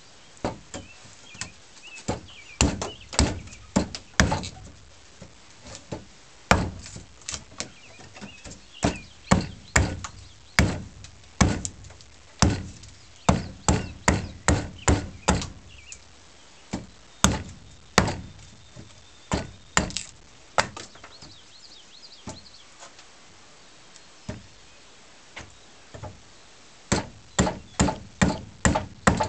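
Small hatchet chopping into a wooden handle blank: sharp wooden knocks in irregular runs of quick strokes, thinning out for several seconds late on before a fast run of blows near the end.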